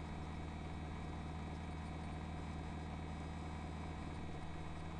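Steady low hum with a faint hiss over it, unchanging throughout: the background noise of the narration microphone.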